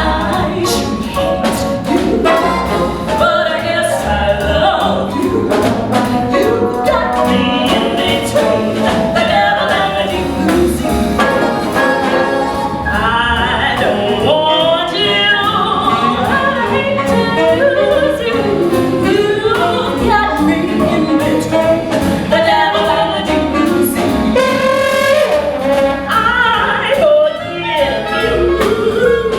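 A singer over a big-band jazz orchestra with brass and trumpet, playing a number with a steady beat.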